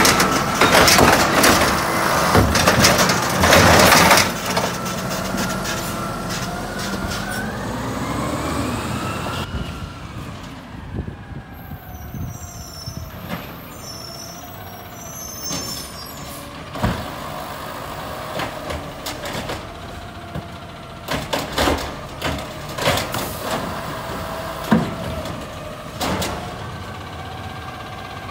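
Automated side-loader garbage truck emptying a recycling cart: loud clattering and banging for the first few seconds as the cart's contents fall into the hopper, then the engine revving up with a rising pitch as the hydraulic arm works. After an abrupt change about nine seconds in, a garbage truck's engine runs steadily at low speed, with scattered clanks and bangs.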